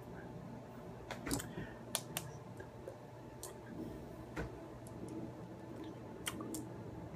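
Scattered sharp clicks and taps from handling a small vape mod and its atomizer, a few in a quick cluster about a second in and another pair near the end, over a faint steady hum.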